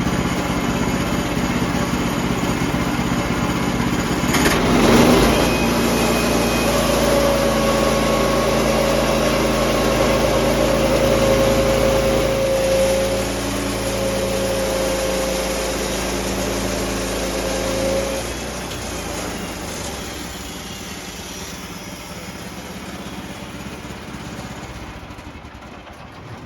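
The gas engine of a portable sawmill runs steadily under load as the blade cuts through an oak log, squaring it into a cant. There is a loud surge about five seconds in, and a steady whine from about seven to eighteen seconds. After that the sound eases and fades.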